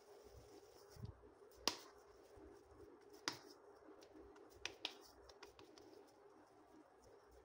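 Hands pressing and patting minced chicken kabab mixture into a flat patty: a few short sharp pats, the loudest about a second and a half in, others about three seconds in and a quick pair near five seconds, over a faint low steady hum.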